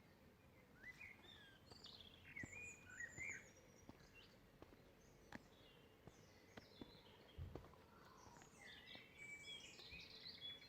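Faint birdsong: short chirps and whistled phrases from songbirds, busiest near the end, with a few faint clicks among them.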